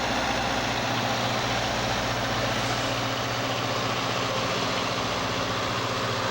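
Tour bus engine idling steadily, a constant low hum with a broad hiss over it.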